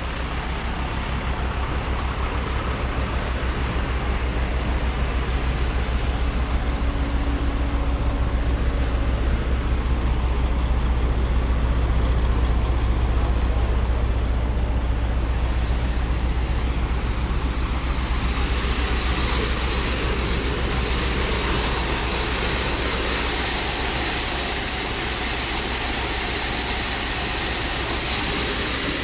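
Heavy farm vehicle engine running steadily with a deep, even rumble, growing slightly louder over the first several seconds. A high hiss joins it about two-thirds of the way in.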